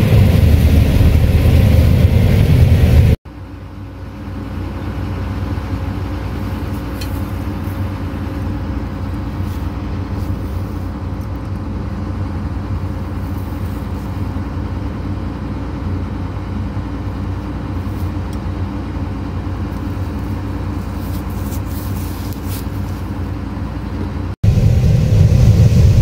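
John Deere combine harvesting soybeans, heard from inside the cab as a loud, low, steady rumble of engine and threshing. About three seconds in it cuts abruptly to a quieter steady machine hum with a few faint ticks. Near the end it cuts back to the loud cab rumble.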